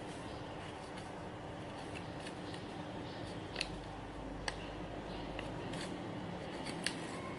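Origami paper being folded and creased by hand: soft rustling with a few sharp paper crackles, the loudest in the second half, over a steady hiss.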